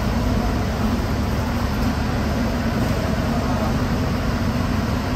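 Steady low mechanical hum with a constant rushing noise, unchanging throughout.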